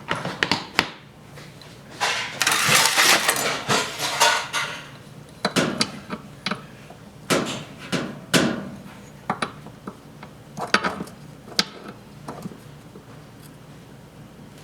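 Clicks, knocks and a stretch of scraping from hand work inside an opened washing machine, around its oil-soaked drive belt and motor.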